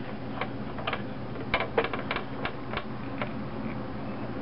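Light, irregular clicks and taps of fingers and fingernails against the plastic housing and metal thread guides of a Singer four-thread serger as it is threaded by hand.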